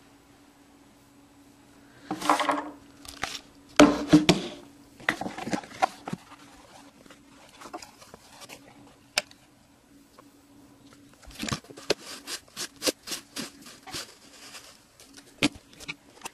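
Hands unpacking and handling a fisheye lens and its packaging: bursts of rustling and scraping about two and four seconds in, then a run of short sharp clicks and taps, over a faint steady hum.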